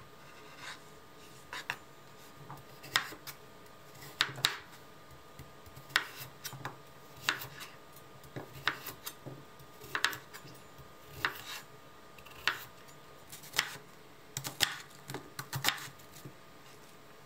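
Chef's knife chopping potatoes, carrots and onion into large chunks on a cutting board: a short sharp knock each time the blade meets the board, about one a second, with a few quicker strokes near the end.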